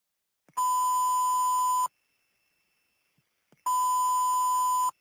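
Fire dispatch radio alert tone: two identical steady high beeps, each about a second and a quarter long, with about two seconds between them, signalling an incoming fire and rescue dispatch call.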